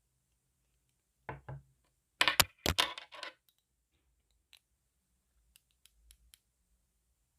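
Close-up ASMR trigger sounds picked up by an earphone microphone. Two soft taps come first, then a short burst of sharp clicks and crackles about two seconds in, and a few faint ticks later.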